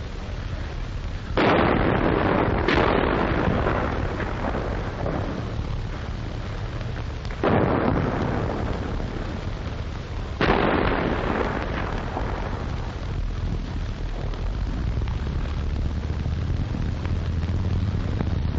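Four heavy gunfire reports in street fighting, each a sudden blast that rolls away in a long echo; the first two come about a second apart. It is a 1944 wartime field recording, with no high treble and a steady low hum underneath.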